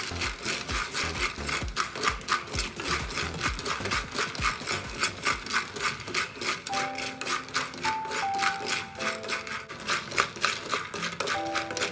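Flat wooden spatula stirring peanuts in a pan as they roast with salt and salted water: a rhythmic scraping and rattling, about three strokes a second. Soft background music with held notes comes in about two-thirds of the way through.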